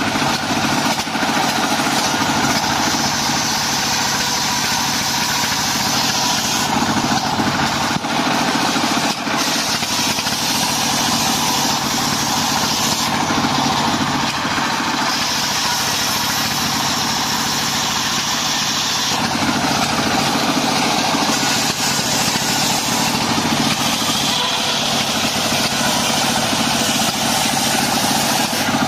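Homemade table circular saw driven by a single-cylinder diesel engine running steadily while lamtoro (leucaena) wood is ripped into boards. The blade's cutting hiss rises and falls over the engine as each board is pushed through.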